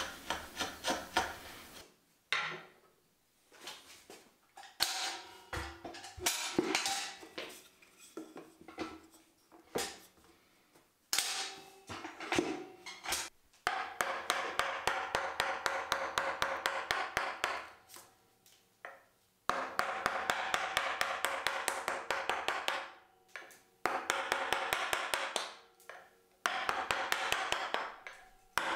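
Round wooden mallet driving a chisel into an oak blank: rapid light blows, several a second, in bursts broken by short pauses, after a stretch of scattered single knocks and chisel cuts in the first half.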